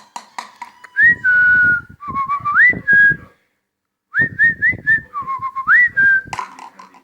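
Rose-ringed (ring-necked) parakeet whistling in two short phrases of swooping, rising notes, with a quick run of clicks at the start.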